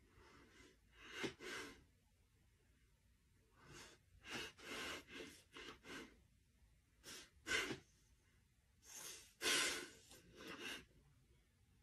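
Close-up breathing: short, breathy sighs and sniffs in several groups, with the loudest near the middle and about two-thirds of the way through.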